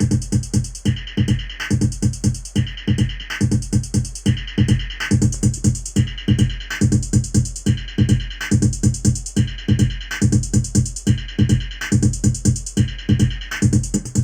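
Electronic dance loop playing back: a fast, steady drum-machine kick pattern with a bright synth phrase that cuts in and out in a repeating cycle of about a second and a half.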